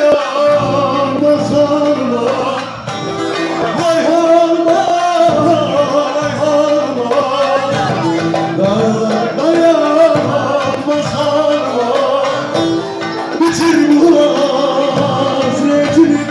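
Turkish folk song (türkü) played live: a sung melody over plucked-string accompaniment.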